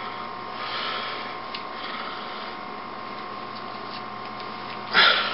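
Steady room noise: a constant hum over a faint hiss, with a short burst of noise about five seconds in.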